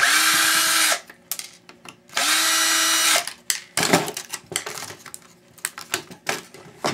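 Cordless drill used as a screwdriver, backing screws out of a laptop's case in two short runs of about a second each, the motor whine rising quickly at each start and then holding steady until it stops. Light clicks of handling follow.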